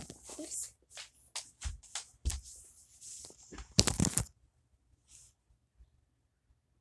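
Handling noise of a phone held in the hand: rustling and a quick run of soft knocks as the phone and the dolls' cloth dresses are moved against the microphone. It stops about four seconds in.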